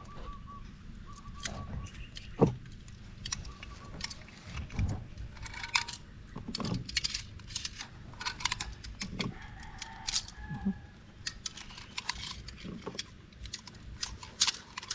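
Full-metal-jacket pistol cartridges being thumbed one at a time into a pistol magazine, with sharp metallic clicks and clinks of brass coming irregularly.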